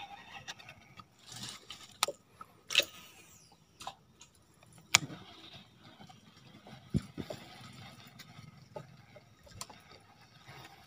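Scattered sharp clicks and knocks from fishing gear handled in a small aluminium boat, with the baitcasting rod and reel and tackle knocking and clicking. The loudest clicks come about two, three and five seconds in.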